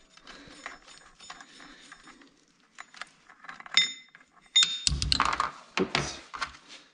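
Light metallic clicking and clinking of hand tools and a scooter's variator nut being handled and worked loose by hand. Two ringing metal clinks come about four seconds in, then a heavier metal clatter and a few knocks about five seconds in.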